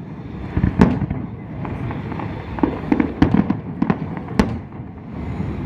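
Fireworks going off: a string of sharp bangs and crackles at irregular intervals, thickening into a rapid cluster about halfway through, with one loud bang near the end.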